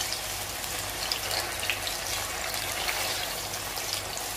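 Boiled taro roots sizzling and crackling as they deep-fry in hot oil in an aluminium kadai, a steady hiss with scattered sharp pops.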